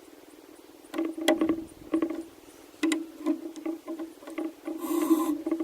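Metal knocks and clicks from the Tormek sharpener's knife jig and micro adjuster being handled and moved on the support bar, each knock ringing briefly, with a short rattle near the end.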